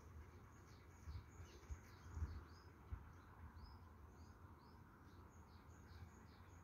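Faint bird chirping: a short high call repeated about twice a second, with a few soft low bumps.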